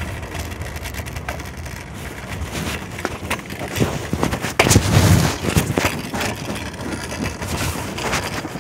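Phone microphone muffled inside a pocket: fabric rubbing with scattered knocks and clicks, and one heavy muffled thump about halfway through.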